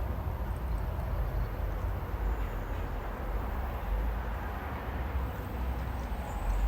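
Pressure washer running steadily, spraying snow foam onto a car.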